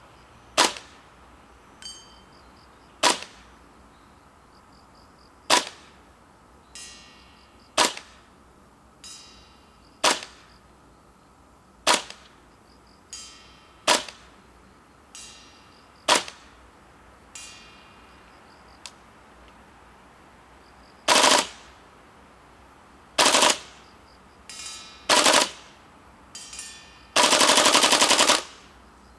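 Tokyo Marui CQBR Block 1 gas blowback airsoft rifle firing: sharp single shots about every two seconds, then a few more spaced shots and a rapid full-auto burst of about a second and a half near the end. Fainter clinks fall between the shots.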